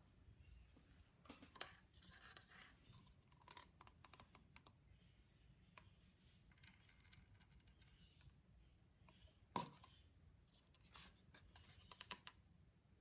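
Near silence with faint scattered clicks and taps in small clusters, one sharper click about nine and a half seconds in.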